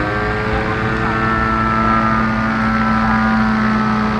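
MVVS 58 Pro Sport gas engine of an RC aerobatic plane in flight, running at high throttle. Its pitch rises as the throttle opens at the start, then holds steady at high revs.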